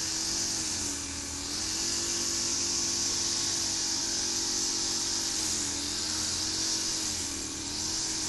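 A motor running steadily with a hum and a high hiss; the hum sags in pitch briefly about a second in and twice more later on.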